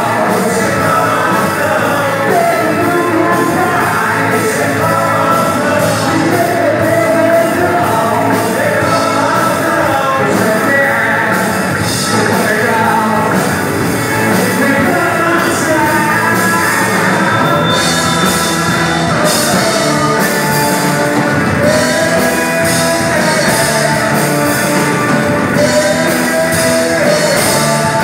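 Live rock band playing with a lead vocalist singing: electric guitar, bass and drum kit. The cymbals come in more strongly about two-thirds of the way through.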